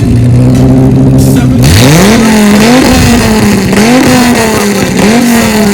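Car engine held at steady revs, then revved hard about one and a half seconds in. It then surges up and down repeatedly, about once a second, each sharp rise in pitch followed by a slower fall.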